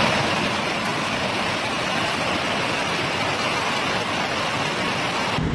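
Heavy hail pouring down, a dense, steady hiss and clatter that cuts off abruptly just before the end.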